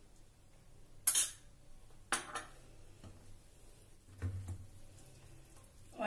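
A metal spoon clinking against glass dishes: a sharp clink about a second in, another about a second later, then a few fainter knocks.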